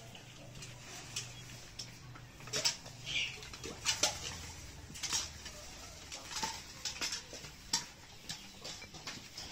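Irregular light clicks, taps and scuffles of a small dog and a baby monkey moving about on a tiled floor and through a mesh play tunnel, with one short squeak about three seconds in.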